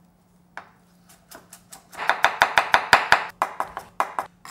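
Kitchen knife mincing garlic cloves on a wooden cutting board: a few scattered knocks, then a fast run of chops, about eight a second, from about two seconds in, thinning out toward the end.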